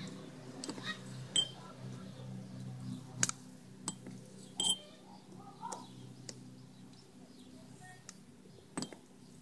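Light handling clicks and clinks of a plastic eyedropper against a glass jar and the battery's cell openings as distilled water is drawn up and dripped into the cells, about five sharp clicks spread through, over a low steady hum.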